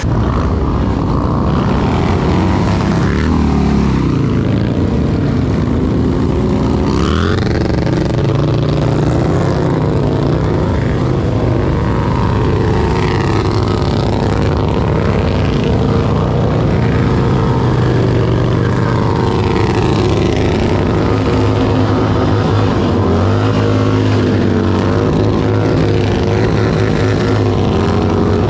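Several heavy touring motorcycles revving hard during burnouts, their engine notes climbing and falling over and over with the rear tyres spinning.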